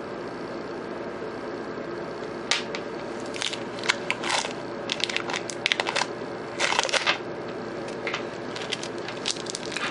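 Hands working a macramê bracelet close to the microphone: a run of short, irregular rustles and scrapes of cord and metal rhinestone spacers being handled, starting a couple of seconds in, over a steady low hum.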